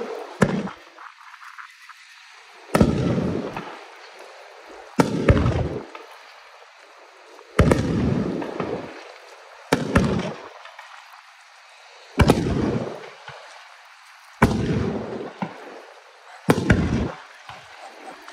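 Fireworks shells bursting overhead: about eight sharp bangs, one every two seconds or so, each trailing off over about a second.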